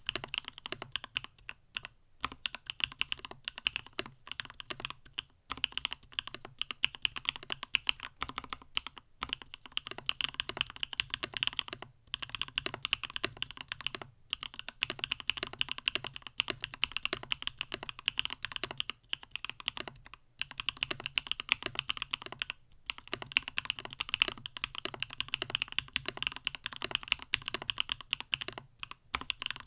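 Continuous typing on a stacked-acrylic CannonKeys StackedTKL mechanical keyboard with Gateron Smoothie linear switches: a rapid, steady run of keystroke clacks with short pauses every few seconds.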